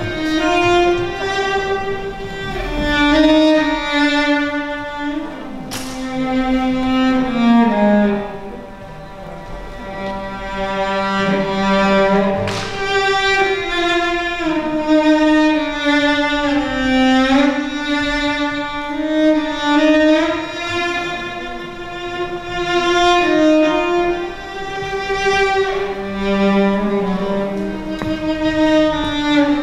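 Slow bowed-string music: long held notes that glide up and down between pitches, with two sharp knocks about six and twelve seconds in.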